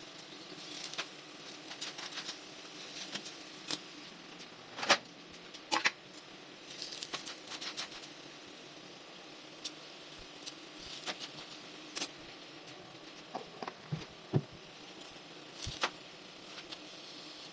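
Paratha frying on a hot iron tawa with a faint steady sizzle, broken by scattered sharp clicks as metal tongs tap and scrape the griddle.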